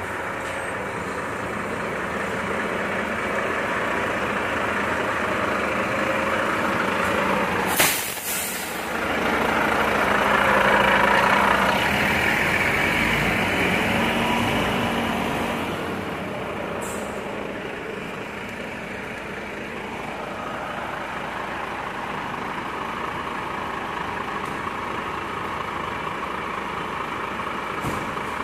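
Volvo FM 370 garbage truck's diesel engine running. About eight seconds in there is a short, sharp hiss of air as the air brakes release. The engine then runs louder for several seconds as the truck pulls away, and settles to a steadier drone.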